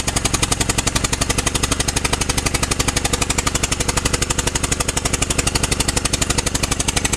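2007 Honda Pilot's V6 engine running with a loud, rapid, even popping, about a dozen pops a second, like a lawn mower. This is the sign of a spark plug blown out of its cylinder head, letting the cylinder puff out through the open plug hole.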